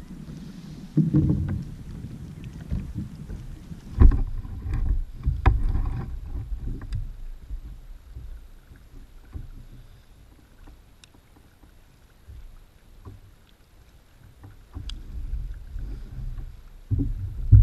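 Wind rumbling on the microphone and water lapping at a plastic sit-on-top fishing kayak, with scattered knocks and rattles of gear against the hull, the sharpest about four seconds in.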